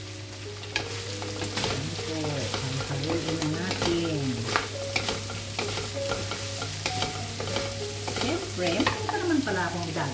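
Carrots and cabbage stir-frying with pork in a pan, sizzling, while a spatula stirs and scrapes through them with repeated clicks against the pan and squeaky sweeping scrapes.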